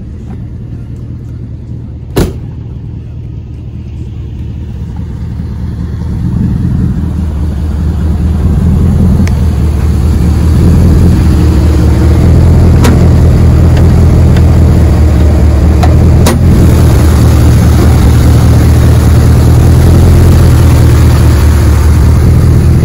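A door shuts about two seconds in, then a single-cab Chevrolet Silverado pickup pulls away. Its engine and road noise swell gradually as it gathers speed, then settle into a loud, steady drone heard from inside the cab.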